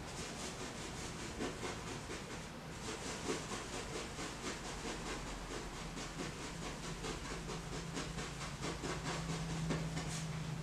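Paintbrush scrubbing oil paint onto a sanded gesso-primed canvas in quick back-and-forth strokes, a rhythmic scratchy hiss of several strokes a second.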